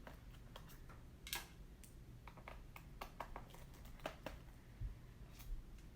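Scattered light clicks and ticks of a small Phillips #00 screwdriver backing out the long bottom-case screws of a 2012 MacBook Pro, metal tip against the screw heads and aluminium case.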